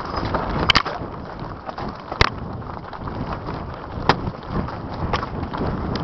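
Mountain bike rolling fast down a rough dirt trail: a steady rumble of tyres over dirt and roots, with a few sharp knocks and rattles as it hits bumps, and wind buffeting the microphone.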